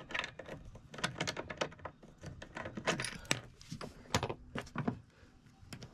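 Rapid, irregular clicks and light rattling of small metal and plastic parts being handled while wires are fitted into a charge controller's terminals.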